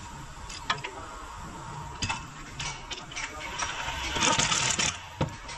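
Hand ratchet clicking in short runs, with scattered clinks of metal tools on a car's front suspension and a louder noisy stretch of about a second, some four seconds in.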